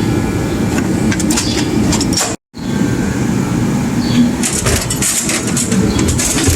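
Metal hand tools and a steel toolbox clanking and rattling as they are handled, over the steady noise of a running heater. The sound cuts out briefly about two and a half seconds in.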